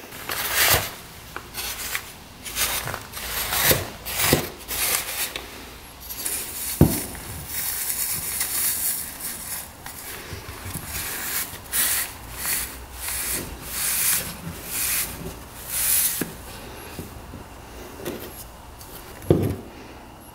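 Silencer packing wool being rolled tight and rubbed by hand, with rustling, scraping strokes as it is wrapped around the perforated core and worked into the silencer canister. There is a sharp knock about seven seconds in and another near the end.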